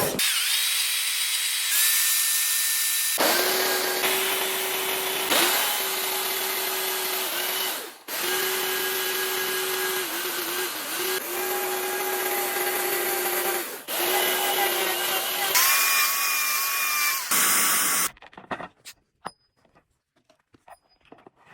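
Power tool carving wood at a steady high speed, in a string of short clips whose pitch jumps at each cut. It stops about 18 seconds in, leaving a few light clicks.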